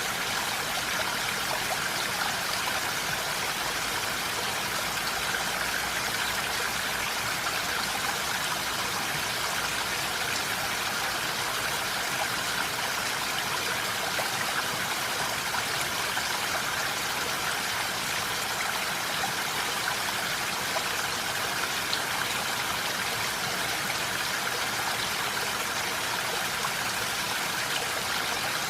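Steady rain falling, an even hiss of many drops with no pauses or changes.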